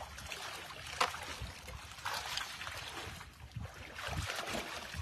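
Shallow pond water splashing and sloshing around people wading and hauling a fishing net by hand, with a sharp knock about a second in.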